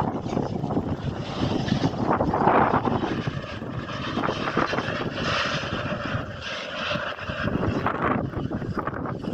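Steady rumble of a freight train of tank wagons running away down the line, easing off slightly, with wind buffeting the microphone.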